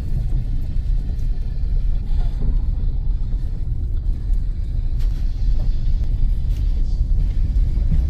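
Steady low rumble of a car driving, heard from inside the cabin as it rolls along a gravel lane.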